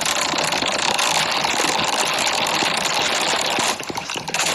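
A loud, harsh, rattling noise effect, steady and dense with fine clicks, that drops away briefly about three and a half seconds in and then comes back.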